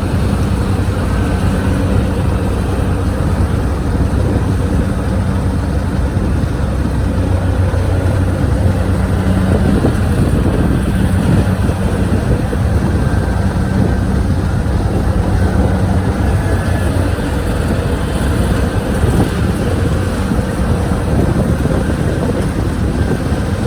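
Kubota DC-73 combine harvester running steadily as it works the rice field, a continuous engine drone with a constant low hum.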